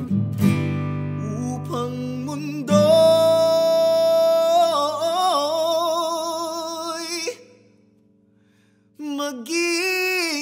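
Male vocalist singing a Tagalog song to his own acoustic guitar. He holds one long note with vibrato for about four seconds, then breaks off into near silence for about a second and a half before singing again.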